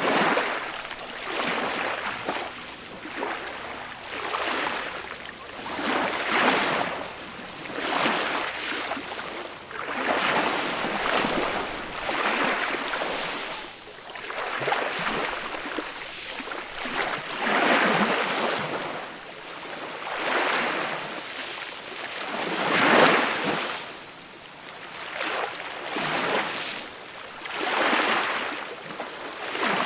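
Gentle waves breaking and washing up a beach, one swell after another every two seconds or so, the loudest a little over two-thirds of the way through.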